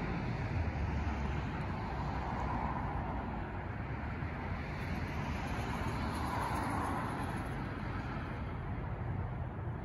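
A car driving past on the street, a steady noise of tyres and engine that swells and eases, over continuous background traffic noise.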